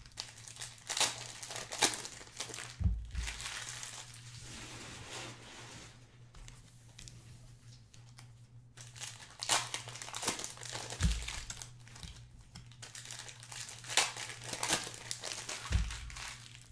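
Trading-card pack wrappers being torn open and crinkled, with cards handled and shuffled in irregular bursts. Three dull thumps, as of packs or cards set down on the table.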